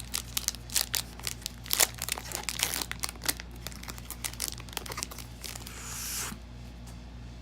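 Foil Pokémon booster pack wrapper crinkling and tearing as it is opened, in quick sharp crackles, with a longer steady rustle about six seconds in.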